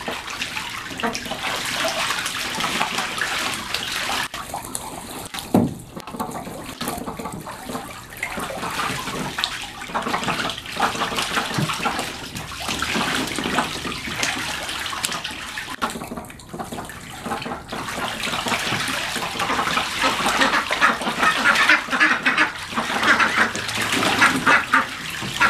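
Young Khaki Campbell ducks splashing and bathing in a shallow plastic paddling pool, dipping and beating the water with their wings, with some quacking. The splashing grows louder and busier over the last few seconds.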